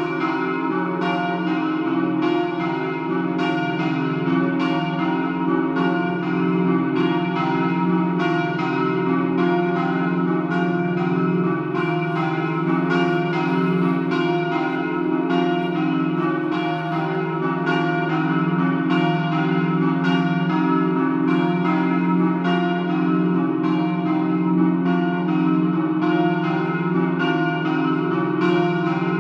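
Church bells swung in full peal in a Friulian 'doppio' ringing: several bells striking in continuous overlapping strokes, about one to two strokes a second, over a steady hum of ringing tones.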